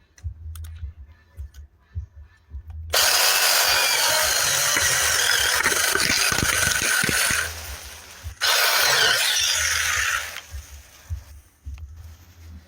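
Tietoc 6-inch cordless mini electric chainsaw running in two bursts, one of about four and a half seconds and then one of about two seconds, each starting and stopping abruptly.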